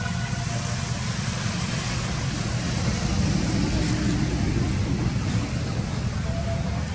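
Steady low rumble with an even hiss of outdoor background noise, with no single distinct event standing out.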